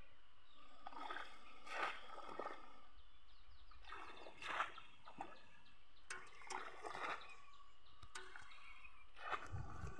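Shallow muddy pond water sloshing and splashing as a plunge-basket fish trap is pushed down into it and lifted out while a person wades, a handful of splashes a second or two apart over a steady outdoor hiss.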